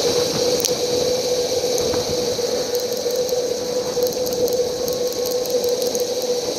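Steady whirring noise of a bicycle in motion, wind and tyres on the road, with a constant hum and hiss underneath.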